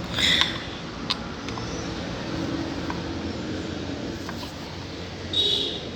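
Steady background traffic noise with a few light metallic clicks as engine parts are tightened by hand, and two brief high-pitched sounds, one near the start and one near the end.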